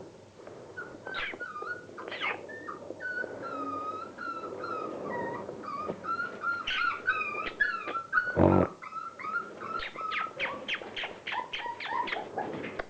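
Five-week-old Border Collie puppies whining and whimpering in high, wavering cries, with one loud sudden noise about eight and a half seconds in. Near the end the cries turn into a quick run of short, sharp yips.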